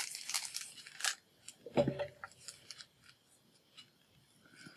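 Scissors cutting open a clear plastic bag: the bag crinkles in the first second, there is a knock about two seconds in, then a few faint clicks of the blades.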